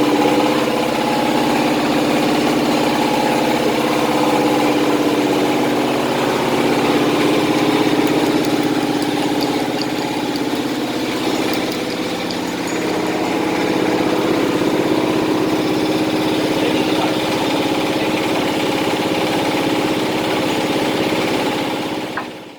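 Heavy truck's diesel engine idling steadily, the sound dropping away abruptly at the very end.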